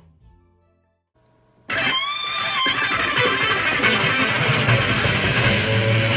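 Soft music fades out into a second of near silence. About a second and a half in, loud, dense music with electric guitar begins and carries on, with a few bent, sliding notes near its start.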